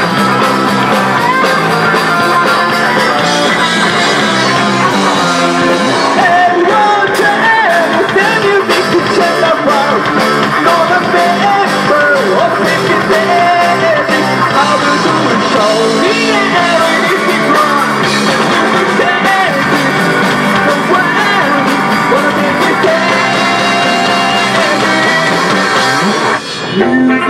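A rock band playing live: electric guitars, bass and a drum kit, with a man singing over them. The music dips briefly just before the end.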